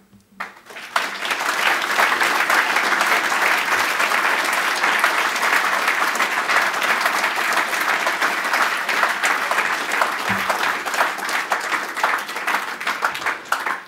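Audience applauding: dense clapping that starts about half a second in, fills out within a second, holds steady and dies away near the end.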